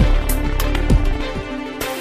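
Background music with a steady beat and sustained instrument tones.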